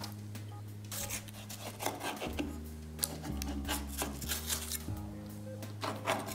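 A knife cutting and scraping through raw puff pastry on baking paper over a metal pan, in short irregular strokes, over background music with sustained low chords.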